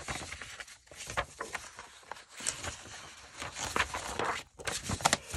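Sheets of printed paper rustling and shuffling as they are handled and sorted, with irregular soft taps and flicks.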